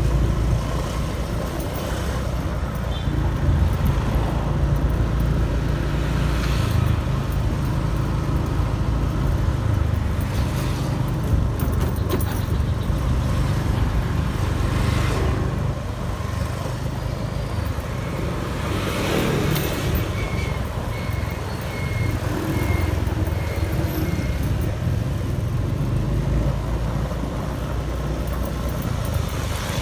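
Road traffic: a steady low rumble of motor vehicle engines, with a few brief swells as vehicles go by.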